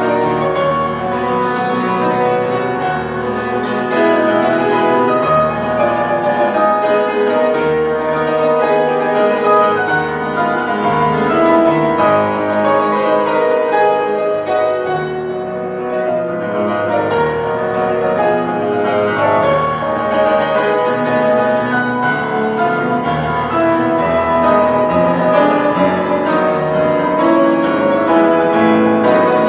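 Grand piano played solo: a dense, continuous stream of notes without a break.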